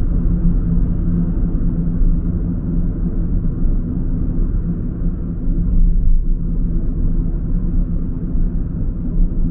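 A car driving: steady low rumble of engine and road noise.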